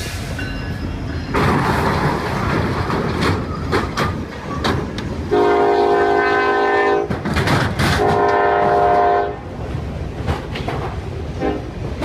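A train running past, with a steady noise and repeated clicks from the wheels. Its horn sounds two blasts of about a second and a half each, about five and eight seconds in.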